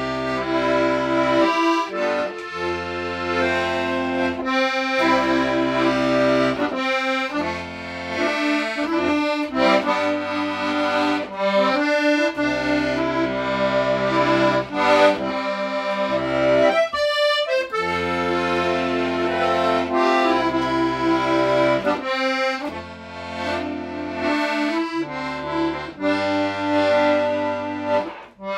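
Button accordion playing a folk-style tune: a melody over held bass chords that break off every second or two. The playing stops briefly just before the end.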